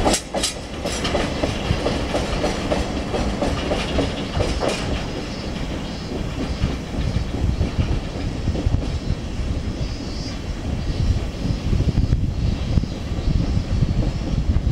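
Freight train of hopper wagons rolling slowly out behind an electric locomotive: wheels clicking over rail joints and points for the first few seconds, then a steady low rumble of the passing wagons.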